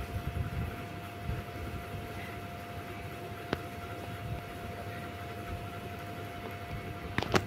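Quiet outdoor background with a steady faint hum, soft low rumbles of water stirring in the first second or so as people wade through a muddy pond, and a single sharp click about three and a half seconds in.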